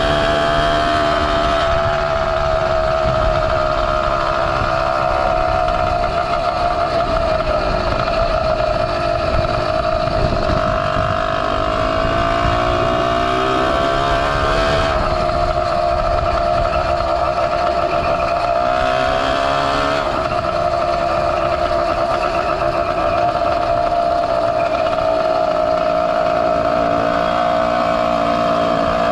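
Small two-stroke bicycle engine kit (Zeda 80) running under way on a motorized bicycle, a steady buzzing note whose pitch dips and climbs back a few times as the throttle is eased and opened.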